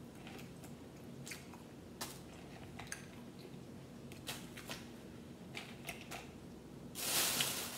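Boiled crawfish being pulled apart and peeled by hand over a glass bowl: scattered small cracks and wet clicks of shell, then a louder rustling noise near the end.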